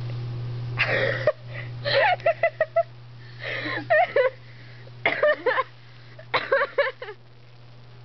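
Women laughing in several bursts of high, pulsing giggles. A steady low hum sits underneath and drops away about a second in.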